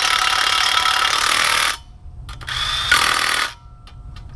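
Cordless impact driver running flex-plate bolts down into the crankshaft flange in two bursts: the first lasts until nearly two seconds in, and a shorter one of about a second follows shortly after.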